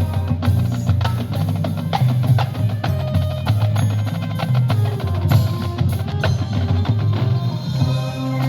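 Marching band playing its show: sustained low chords under higher held notes, with a steady beat of drum and percussion hits.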